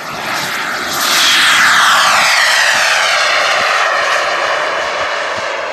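Jet-powered radio-controlled F-18 Hornet model flying past: its engine's whine swells to loudest about a second in, then drops in pitch as the plane moves away.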